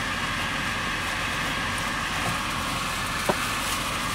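Steady machine drone with a single sharp click a little over three seconds in.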